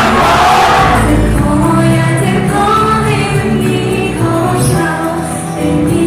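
Idol-group pop song with female group vocals, played loud. A short burst of noise lies over the music right at the start.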